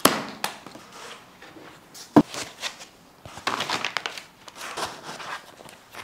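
Unpacking a cardboard box: a sharp snap as a plastic packing strap is cut, a single thunk about two seconds in, then rustling and scraping of cardboard and foam blocks as the box is opened.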